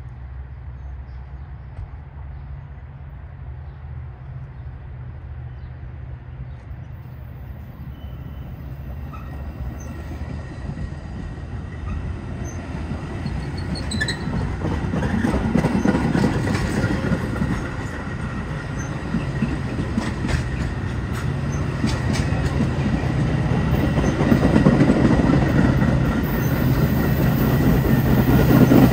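Metra bilevel commuter train passing close by, growing louder as the cars go by: steel wheels rumbling and clicking on the rails, with some wheel squeal. A steady low engine hum from the diesel locomotive pushing at the rear grows louder near the end.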